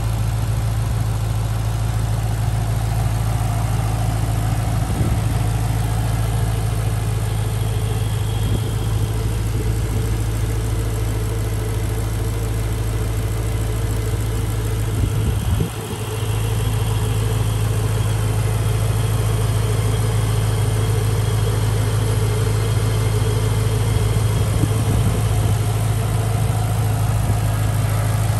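2008 Ford Mustang Roush 427R's supercharged 4.6-litre V8 idling steadily, heard from the open engine bay.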